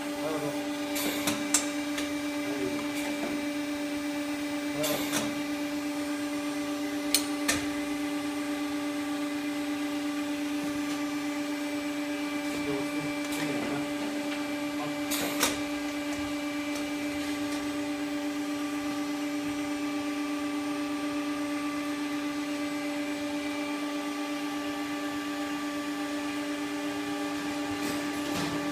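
Hydraulic gorelocker elbow-forming machine running with a steady hum, broken by a few sharp knocks.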